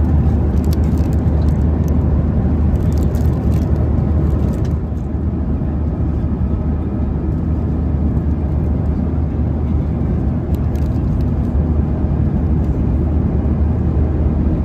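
Steady cabin noise of a Boeing 737-900ER in cruise: a loud low rumble of airflow and engines. A plastic cookie wrapper crinkles over the first few seconds and briefly again later.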